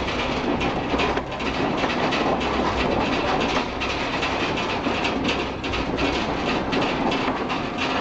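House rattling continuously during strong earthquake shaking: windows, furniture and fittings clattering over a low rumble.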